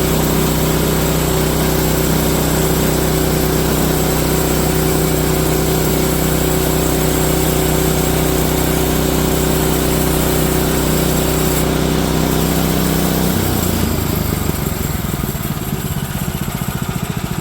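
Engine of a Woodland Mills HM130 MAX portable bandsaw mill running steadily at speed, then dropping to a lower, evenly pulsing idle about 13 seconds in.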